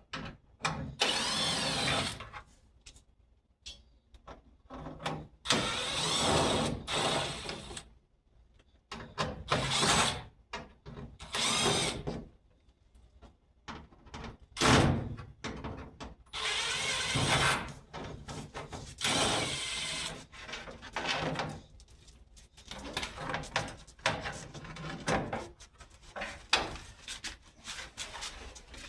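Cordless drill-driver running in short bursts, several times over, backing out the self-tapping screws that hold the door panel in place.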